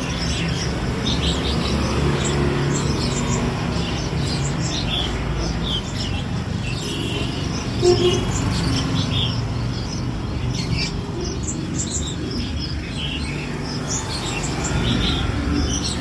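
Caged songbirds, laughingthrushes among them, chirping and singing in short, scattered high notes over a steady low rumble.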